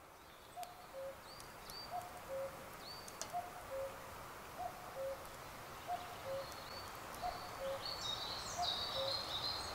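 Common cuckoo calling its falling two-note "cuck-oo" over and over, about once a second, in woodland. Small birds chirp high above it now and then, and near the end there is a burst of songbird twittering.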